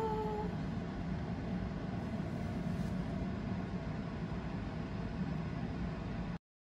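Steady low background rumble with no distinct events, cutting off abruptly to silence about six seconds in.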